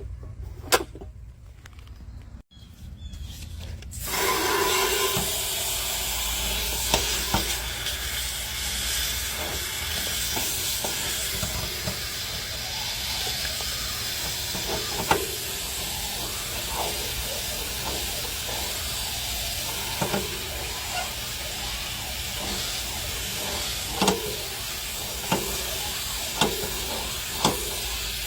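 Water spraying from a hose onto an outdoor AC condenser unit to wash it: a steady hiss that starts about four seconds in, with scattered clicks and taps.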